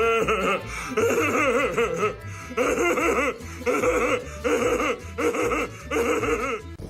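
Laughter-like vocal calls with wavering pitch, in about six bursts about a second apart, over background music.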